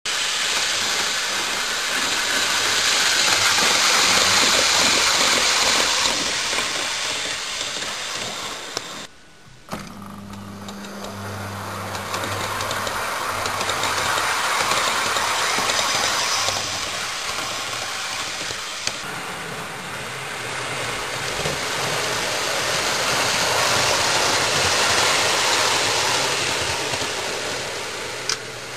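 Model railway train running along the track, a steady whirr of its motor and wheels on the rails that swells as the train nears and fades as it draws away, several times over. The sound breaks off briefly about nine seconds in, with a click.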